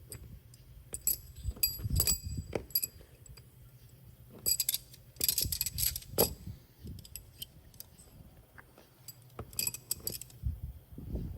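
Steel pushrods clinking and rattling against one another as they are handled, in a few short bursts of ringing metallic clicks.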